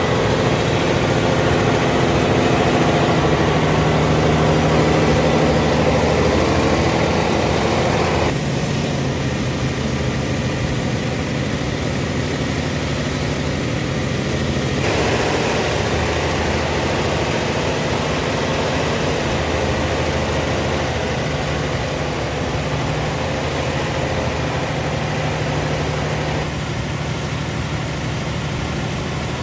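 Mercedes-Benz Zetros 4x4 truck's six-cylinder diesel engine running steadily at low revs as the truck crawls over sandy off-road ground. The sound changes abruptly a few times where shots are cut together.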